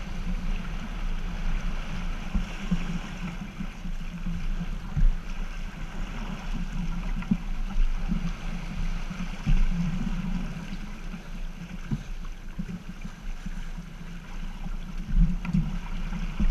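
Water rushing along the hull and wind over a Half Ton racing yacht sailing heeled through chop, a steady noisy rush with a few louder bumps along the way.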